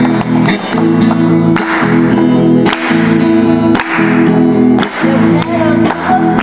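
Song with strummed acoustic guitar chords in a steady rhythm, about one strum a second, and a woman's singing voice coming in briefly near the end.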